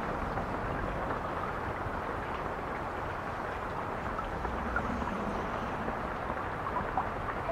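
A steady rumbling noise with no clear pitch, even in level, with a few faint small ticks scattered through it.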